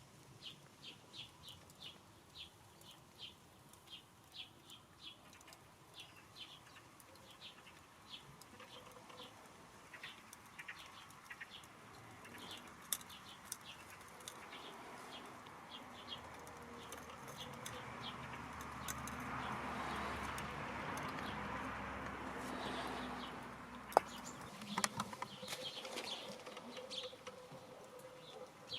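A small bird chirping over and over, about two short high chirps a second. Later a broad rushing noise swells up and dies away, followed by a few sharp clicks.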